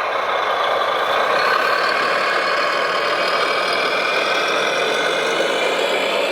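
Radio-controlled construction machine running: a steady mechanical drone whose low tone slowly rises in pitch.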